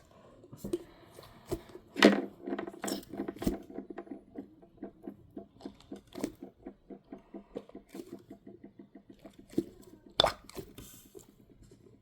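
An air-filled squishy dumpling toy being squeezed and handled: soft crackling and squishing in a run of quick small ticks, about four a second, with a few louder knocks, the loudest about two seconds in.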